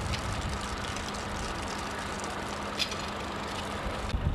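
A diesel truck engine idling, a steady low hum under outdoor background noise; the hum drops away shortly before the end, with a single tick near the end.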